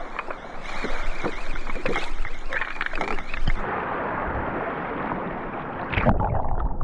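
Seawater splashing and sloshing around swimmers entering the sea, with irregular splashes in the first few seconds, then a smoother wash. Near the end the sound turns deeper and duller.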